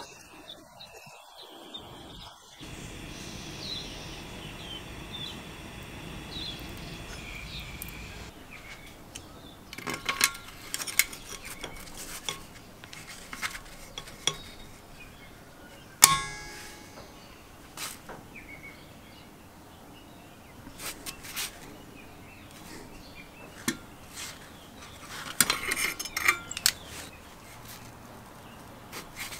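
Metal clinks and clanks as locking pliers grip and work a rusted muffler on the exhaust port of a 1974 Briggs & Stratton 3HP engine, with one sharp clang about halfway through. For the first several seconds a handheld gas torch hisses steadily as it heats the seized muffler threads.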